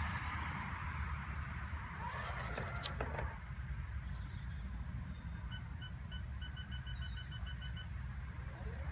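Honda Miimo robotic lawn mower pulling away from its charging dock, running with a low steady hum. About halfway through it gives a string of short, high electronic beeps: three spaced ones, then a quick run of about ten.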